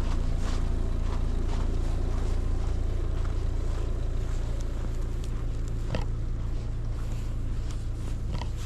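Storm wind buffeting the microphone: a steady low rumble that eases slightly toward the end, with scattered faint ticks.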